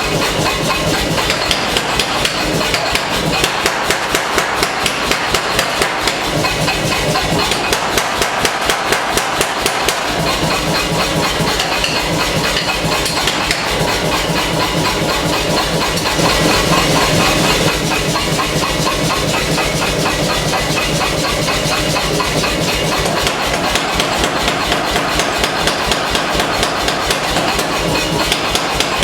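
Air-powered forging hammer pounding hot steel in rapid, evenly spaced blows, drawing out a knife blade. It runs without a pause and gets briefly louder about halfway through.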